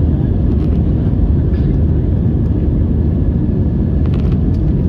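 Steady low rumble of an airliner's engines and airflow, heard inside the passenger cabin during the climb after takeoff.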